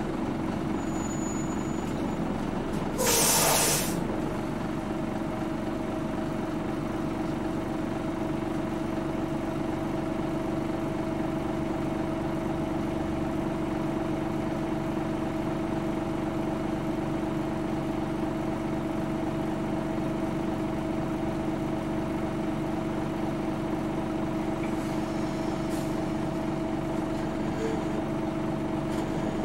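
Nissan Diesel Space Runner city bus's diesel engine running steadily, with one short, sharp hiss of compressed air about three seconds in, typical of the air brake releasing.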